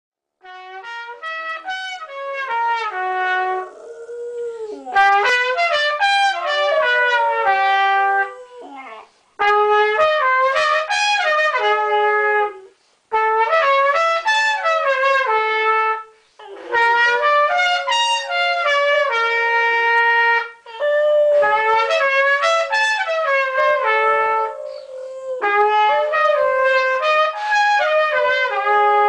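Trumpet playing phrases of held notes a few seconds long, with short breaks between them. A Miniature Schnauzer howls along, its howl sliding in pitch under the louder trumpet.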